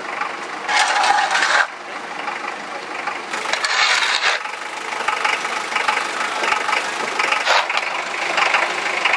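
Spade scooping and scraping into a heap of spilled flower bulbs, the bulbs rattling against the blade and each other in rough bursts of about a second each, over steady background noise.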